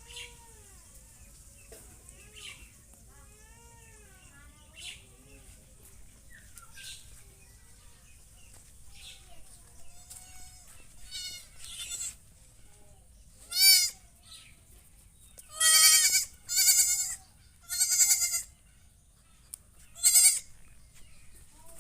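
Goat bleating: soft calls at first, then about five loud, wavering bleats in quick succession in the second half.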